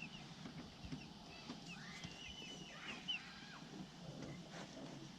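Faint poultry calls in the background: a few short calls that rise and fall in pitch, about one and a half to three seconds in, with a soft knock near the three-second mark.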